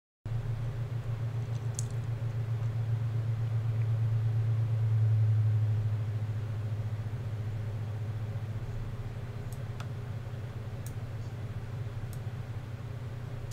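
A steady low hum that swells to its loudest about five seconds in and then eases off, with a few faint clicks as parts are handled.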